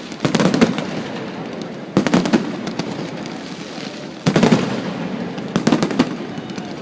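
Fireworks shells bursting in the sky: four clusters of sharp, crackling bangs about every one and a half to two seconds, each trailed by an echoing rumble.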